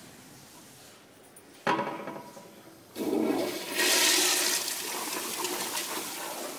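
Toilet flushing: a sudden loud start under two seconds in, then from about three seconds in water rushes loudly through the bowl and keeps going.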